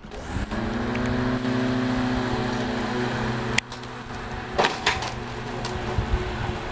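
24-volt electric motors of a converted lawn tractor starting up: a hum that rises in pitch over the first half second, then holds steady. About halfway through there is a sharp click, the steady tone drops away, and a rougher running noise follows with a couple of knocks.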